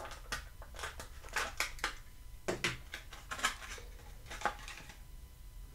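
Clear plastic blister tray crackling and clicking as a small toy car is worked out of it, in an irregular series of sharp crackles that thin out near the end.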